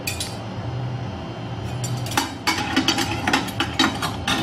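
Metal kitchen utensils clinking and clattering as a stainless slotted spoon is picked out and handled, with a quick run of clinks in the second half. A steady low hum runs underneath.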